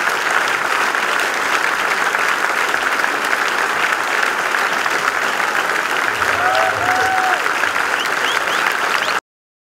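Audience applauding at a tango show's curtain call, with a few voices calling out above the clapping. The applause cuts off suddenly just before the end.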